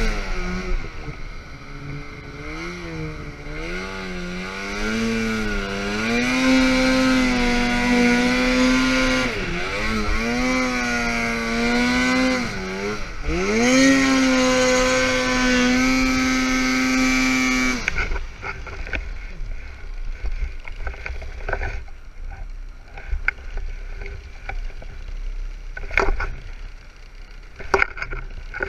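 Snowmobile engine running under throttle through deep snow, its pitch rising and falling repeatedly as the rider works the throttle. About two-thirds of the way through the engine note drops away, leaving a low rumble and a few sharp knocks.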